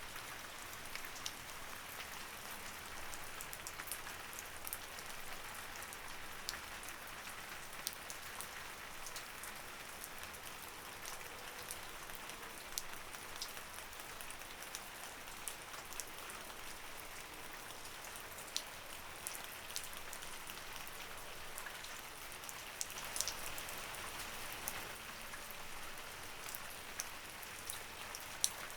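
Light rain falling steadily: an even soft hiss with scattered sharp drip ticks of single drops striking a surface.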